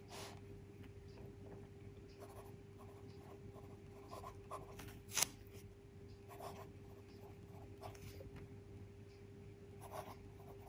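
Faint scratching of a Pelikan M600's 14-karat gold fountain-pen nib writing on a Rhodia paper pad, in short separate strokes as letters are formed, with one sharper tick about five seconds in. A steady low hum runs underneath.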